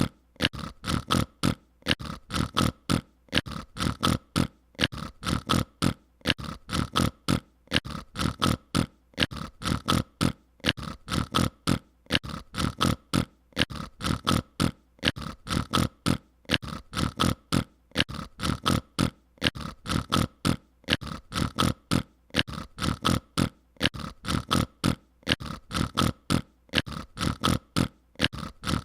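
Mouth-made sound effect: short noises from a person's mouth, repeated in a fast, even rhythm without a break.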